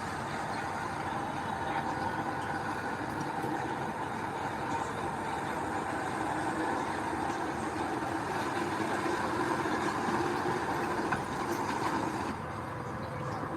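Heavy diesel earthmoving machinery running steadily, with a small drop in level about twelve seconds in.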